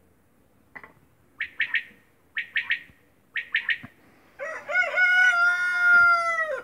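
A quail calling three times, each call a quick run of three notes about a second apart, then a rooster's long crow, the loudest sound, starting about four and a half seconds in.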